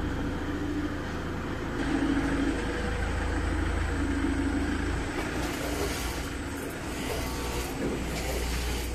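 Popping boba cup-filling and packing line running: a steady low motor hum with a tone that comes and goes. A rushing noise joins about five seconds in.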